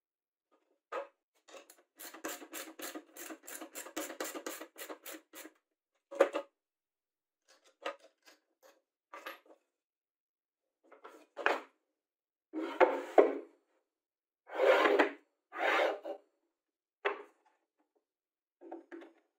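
Hands working plywood parts and metal hardware on a wooden workbench: a quick run of about a dozen clicks, about four a second, from about two seconds in, then separate knocks and scrapes of wood and metal.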